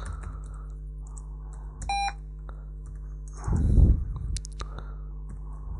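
Computer keyboard keys tapped as a MySQL command is typed. About two seconds in comes a short beep: the mysql command-line client's error bell as an unknown-database error comes up. A brief breathy sound follows a little after three and a half seconds, over a steady low hum.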